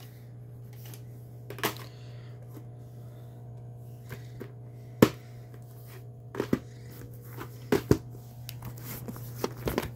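Hard plastic clicks and knocks from a VHS cassette being set into its plastic clamshell case, the case being snapped shut and set down, about half a dozen sharp taps with the loudest about halfway through. A steady low hum runs underneath.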